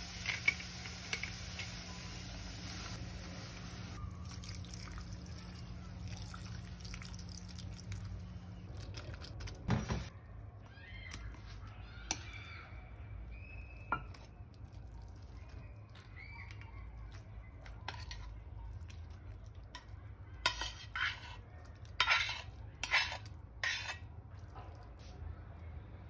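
Stainless-steel pot and utensils clinking and scraping against a ceramic serving bowl as the noodles are tipped out and plated. A solid knock comes about ten seconds in, then scattered clinks, then a quick run of sharp clatters near the end.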